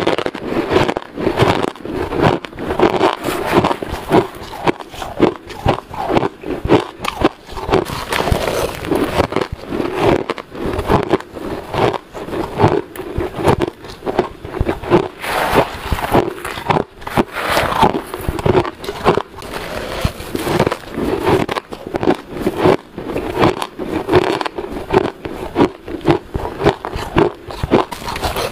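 Close-miked biting and chewing of powdery shaved ice: a dense, continuous run of crunches and crackles as mouthful after mouthful is bitten.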